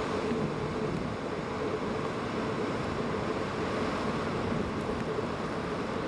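Gale-force wind blowing and heavy lake surf breaking against a pier, as one steady, even rush of noise.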